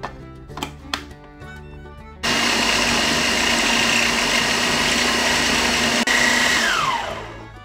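A few plastic clicks as the food processor's lid is locked on, then about two seconds in its motor starts and runs steadily, mashing boiled potatoes. Near the end it switches off and winds down, its whine falling in pitch.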